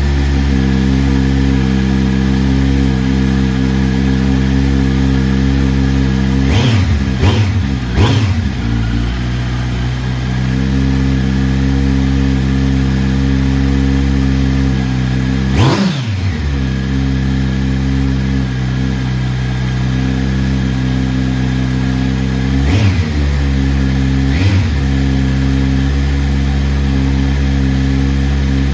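2020 Kawasaki Z900's inline-four idling through an aftermarket slip-on exhaust, with short throttle blips that rise and fall quickly: three in quick succession about seven seconds in, a bigger one near the middle and two more near the end. The stock catalytic converters are still fitted, and the owner finds them still muffling much of the sound.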